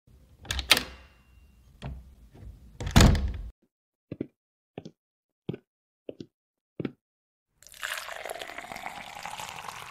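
Coffee sound effects: a few knocks, then five single drips about two-thirds of a second apart, then a steady pour of liquid into a cup starting about three-quarters of the way in.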